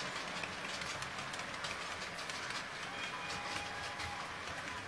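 OO gauge model train running along the track: a steady rolling noise with light, irregular clicking from the wheels on the rails.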